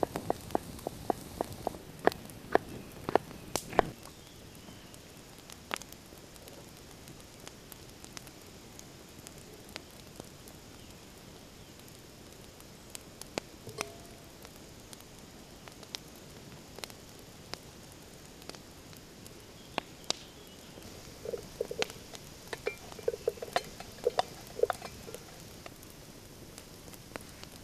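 Knife chopping a carrot on a wooden cutting board: a run of sharp even strokes, about two or three a second, that stops about four seconds in. After that, a campfire crackles with scattered pops, and there is a cluster of light knocks between about 21 and 25 seconds.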